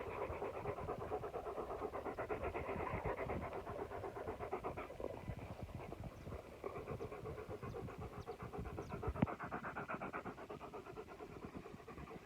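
Dog panting in a fast, steady rhythm of short breaths, several a second, with one sharp click about nine seconds in.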